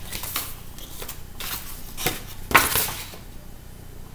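Sheets of paper rustling as they are handled and leafed through, in several short bursts, the loudest about two and a half seconds in.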